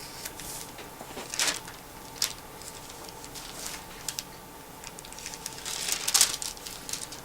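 Paper rustling as book pages are turned: short rustles about a second and a half in and again just after two seconds, and a longer rustle near the end.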